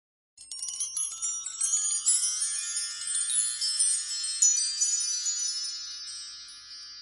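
A cluster of high metallic chimes, struck many times in quick succession about a third of a second in, ringing together and slowly fading away over several seconds.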